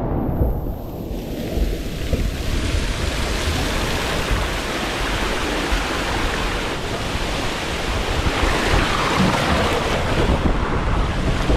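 Rushing, splashing water running without a break, with wind buffeting the microphone.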